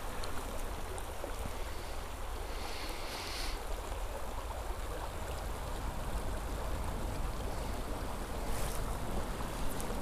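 Steady rush of river water flowing through shallow riffles, with a low wind rumble on the microphone.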